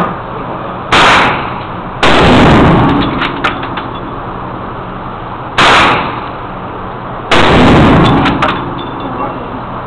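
Four gunshots from a Marlin .30-30 lever-action rifle, in two pairs about a second apart, each echoing off the range's concrete walls. Light metallic clicks follow the second and fourth shots.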